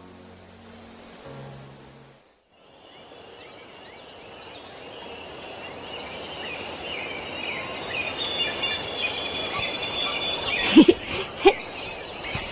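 Crickets chirping over soft music notes, both cutting off about two seconds in. Then birdsong in woodland starts and grows gradually louder, with a few short, sharp sounds near the end.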